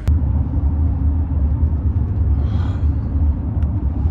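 Steady low rumble of a car in motion, engine and road noise heard from inside the cabin.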